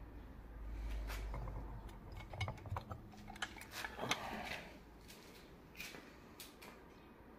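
Handling noise: a scatter of light clicks and small metal clinks, with a low rumble during the first five seconds or so.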